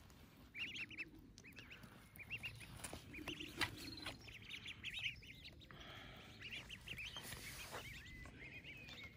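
Ducklings peeping in quick clusters of short high calls, again and again, faintly. A few light clicks and scrapes come from a spade turning soil.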